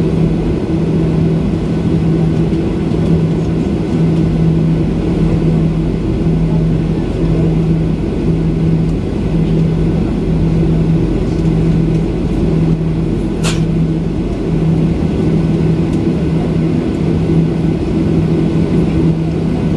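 Steady cabin noise of a jet airliner on the ground with its engines idling: a low drone with a hum that pulses about once a second. A brief high click about two-thirds of the way through.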